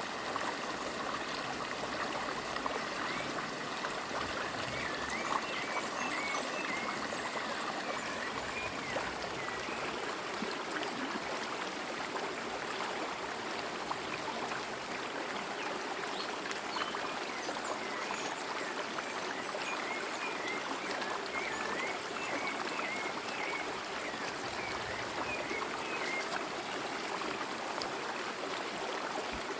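A forest stream running with a steady rush of water. Over it a bird sings runs of warbling chirps twice: about four seconds in, and again from about sixteen seconds in.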